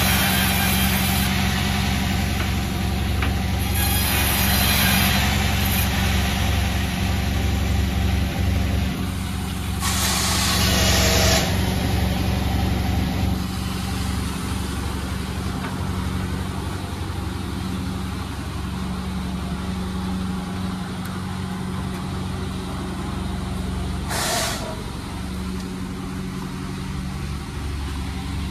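A large engine running steadily with a low hum, with two short hisses, one about ten seconds in and one near the end.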